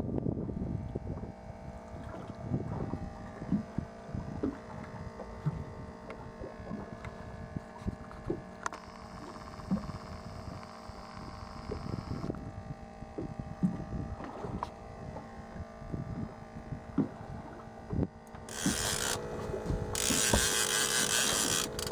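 Yamaha 90 outboard motor running steadily at low speed, with water knocking against the hull. About 18 seconds in, a loud rushing noise starts and carries on, with short breaks, to the end.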